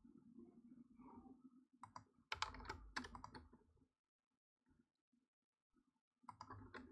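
Faint computer keyboard and mouse clicks: a quick run of clicks about two seconds in that lasts a couple of seconds, then near silence.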